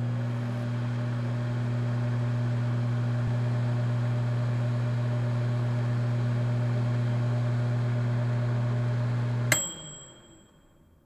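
Microwave oven running with a steady low hum, which stops about nine and a half seconds in as its timer bell dings once and rings briefly.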